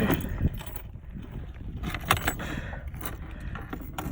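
Handling noise of fishing gear on a kayak: light clattering and clicks with a sharper knock about two seconds in, over a low rumble.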